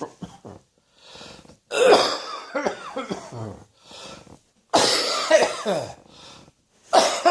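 A person coughing in three fits, roughly every two and a half seconds: each starts with a hard cough and trails into shorter ones, with a breath drawn in before the next. An allergy cough.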